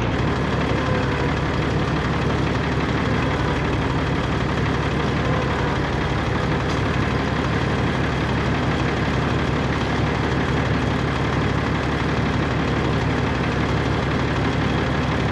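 An engine running steadily at an even, idle-like speed.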